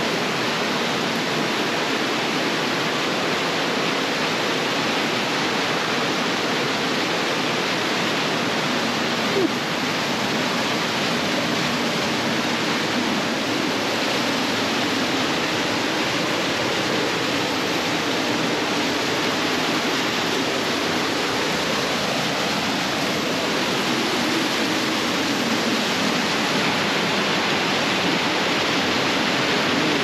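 Steady rush of cascading water, unchanging throughout, with one brief knock about nine seconds in.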